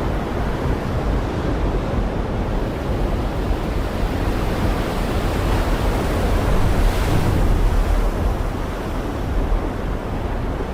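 Heavy rain pouring steadily: a dense, even hiss with a deep rumble underneath.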